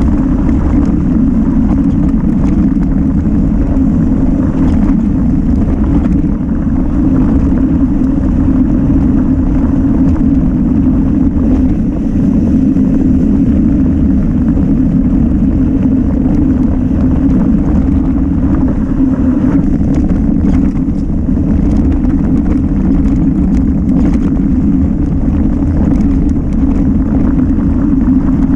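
Mountain bike descending a trail at speed: a steady, loud, deep rush of wind on the microphone and tyre rumble, with faint clicks and rattles scattered through.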